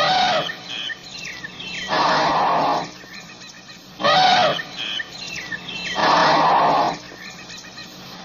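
African elephant calling over and over, about one call every two seconds, short calls alternating with longer ones of about a second.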